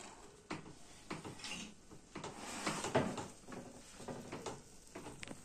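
A small countertop electric oven's door being opened and its tray slid out: a string of light clicks and clanks, the loudest about three seconds in.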